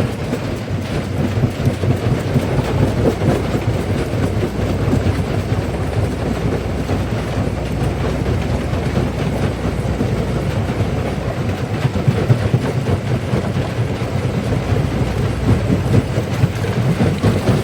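Primary jaw crusher crushing black stone: a continuous heavy rumble with dense, irregular clatter and knocking of rock being broken.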